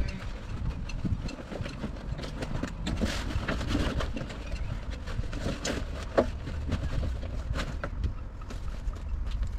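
Rustling and scattered clicks and knocks as orange waterproof bib-and-brace fishing trousers are pulled on and their straps adjusted, over a steady low rumble.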